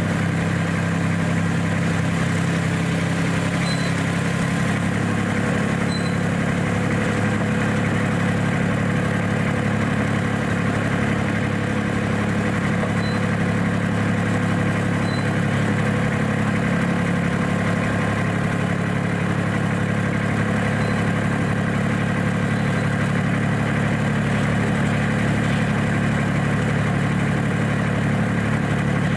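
Engine of a D2-class ride-on miniature diesel-outline locomotive running steadily at an even pitch while the locomotive moves along the track.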